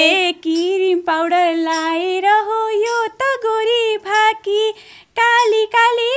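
A single high voice singing a Nepali dohori folk song in short phrases, opening on a held, wavering note, with a brief breath break about five seconds in.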